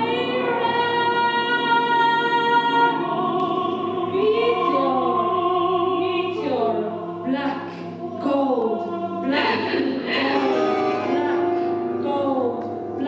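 A woman singing into a microphone in an operatic style. She holds one long note, then a note with wide vibrato, then swoops up and down in pitch through the rest, over a steady low drone.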